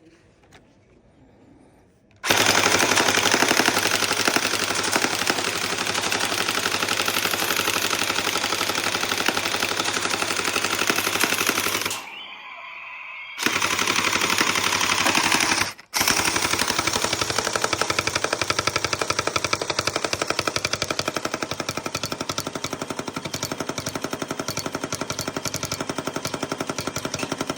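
M4A4-style electric gel blaster, rated at 30 gel rounds a second, firing on full auto in long, very fast rapid-fire bursts. The firing starts about two seconds in, drops away briefly about halfway through and cuts out for a moment soon after before running on.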